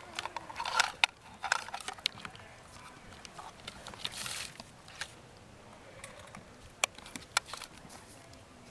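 Hands handling portable radio gear and its cables: scattered sharp clicks and knocks of plastic and connectors, and a short rustle of cloth about four seconds in.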